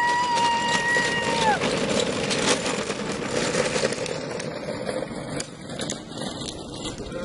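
A high squeal held for about a second and a half, then the rattling, crackling rumble of go-kart wheels rolling over rough ground, fading after a few seconds.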